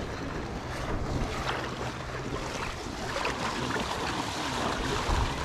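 Steady outdoor noise of flowing river water and wind on the microphone, with a low steady hum underneath.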